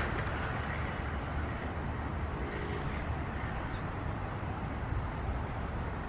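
Steady low rumble and hiss of distant road traffic, with no clear birdsong.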